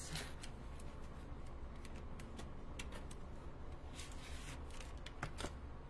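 Paper cards and their plastic packaging being handled on a craft table: faint scattered rustles and light taps, with a small cluster of them near the end.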